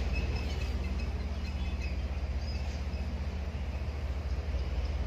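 Steady low engine rumble with a fast even pulse, with a few birds chirping over it.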